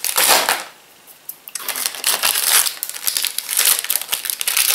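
Snack packaging crinkling and rustling as hands rummage through a box of wrapped sweets: a short burst at the start, a pause of about a second, then steady crinkling.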